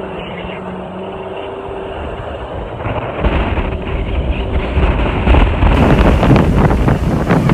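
A 4x4 driving on soft beach sand, its engine droning steadily in the cabin. About three seconds in it gets louder and rougher, and near the end heavy wind buffets the microphone held out of the open window.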